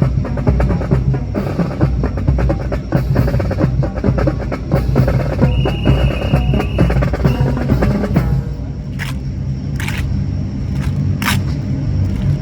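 Rapid drumming, like a snare drum roll, over a steady low rumble. The drumming stops about eight seconds in, leaving the rumble and a few short sharp bursts.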